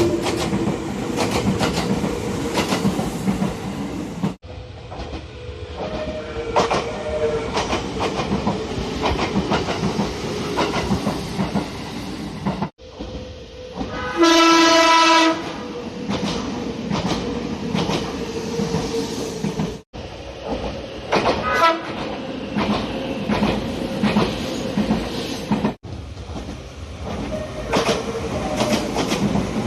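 Nagano Electric Railway express trains running, with wheels clicking over rail joints, in several short recordings spliced together. About fourteen seconds in, a train horn sounds one steady blast of about a second, the loudest sound.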